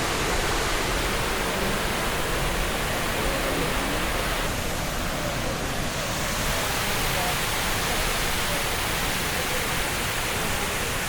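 A waterfall's steady rush of falling water, an even noise that holds at one level throughout.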